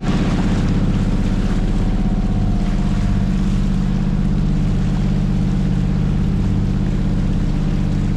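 Boat engine running steadily at an even speed, with a constant pitch and a rapid, regular firing pulse.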